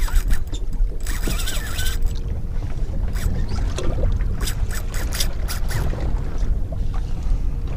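Wind rumbling on the microphone and water lapping against a small boat's hull as it drifts at sea, with a scatter of light clicks and knocks through the middle.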